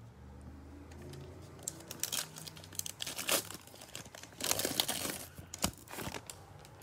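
A foil trading-card pack wrapper being torn open and crinkled by hand: a run of irregular crackling rips and crinkles starting about two seconds in.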